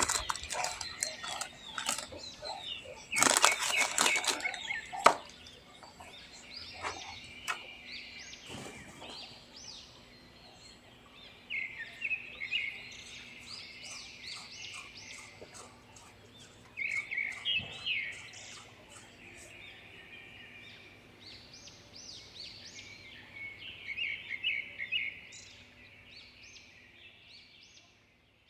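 Loud rustling and crackling for the first few seconds, then birds chirping in short repeated phrases, with brief pauses between them.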